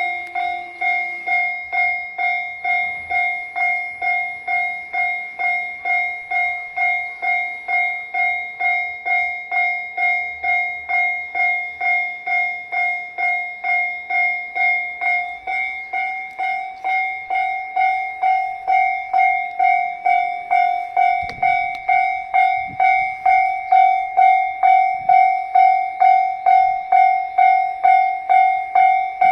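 Japanese railway level-crossing alarm ringing its electronic warning bell: an even, unchanging clang repeated about twice a second. It grows louder in the second half.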